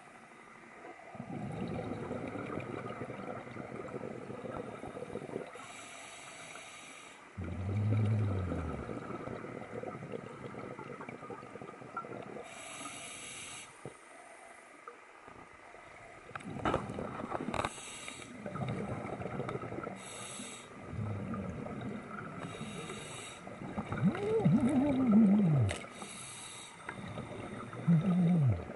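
Scuba diver breathing through a regulator underwater: a short hiss on each breath in, then a longer low bubbling rumble as the exhaled air escapes, repeating in slow cycles every few seconds.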